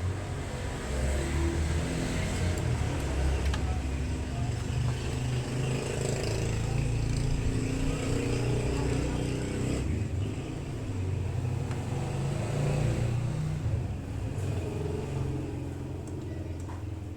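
A motor vehicle engine running for the whole stretch, a low drone whose pitch and loudness waver and swell.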